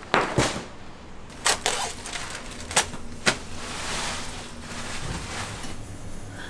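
Kitchen utensils and cookware clanking: five short, sharp knocks in the first three and a half seconds, two close together at the start, over a steady background hiss.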